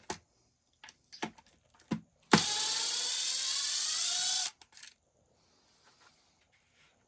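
Cordless power driver running for about two seconds, its whine rising slightly as it spins up, as it backs out a screw. There are small clicks of the tool and parts being handled before and after.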